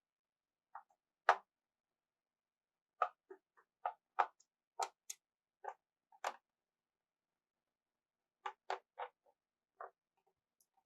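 Scattered small clicks and ticks of a screwdriver working the screws out of a laptop's plastic bottom case, in irregular clusters with short gaps, the sharpest click about a second in.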